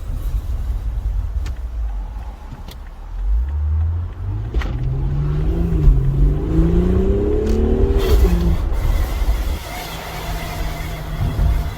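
Noise from a 2018 BMW X3 M40i: over a low rumble, a pitched sound with overtones starts about three seconds in, rises, dips and climbs again, then drops away. A steadier, lower hum follows near the end.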